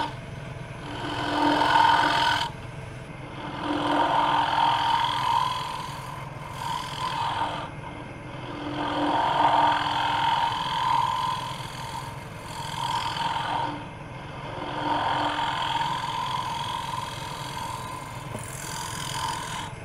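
A carbide tool cutting into the end grain of a spinning maple blank on a wood lathe, hollowing out a scoop. The cutting noise swells and fades with each pass, about every two to three seconds, over the lathe's steady hum.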